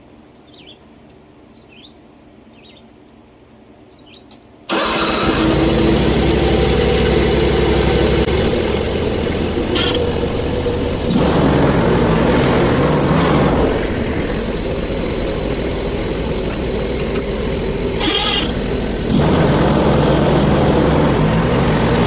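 Faint bird chirps, then about five seconds in the portable bandsaw mill's gas engine comes in suddenly and runs fast and loud, its sound stepping up and down several times.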